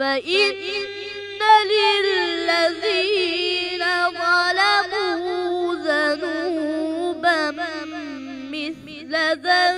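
A boy's voice chanting Quran recitation in the melodic mujawwad style, drawing out long held notes that slide up and down in pitch, with a short break for breath near the end.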